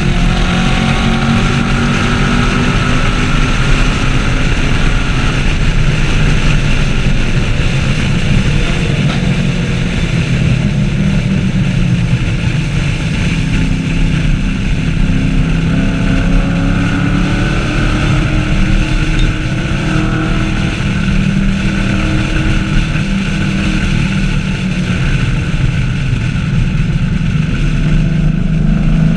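2014 Chevrolet Camaro SS 1LE's V8 engine at speed on a race track, its pitch climbing and falling repeatedly as it accelerates and lifts, over a steady rush of wind and road noise.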